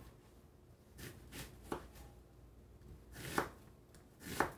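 Chef's knife dicing a red onion on a plastic cutting board: scattered light knife taps against the board in small clusters, the loudest a little past three seconds in and near the end.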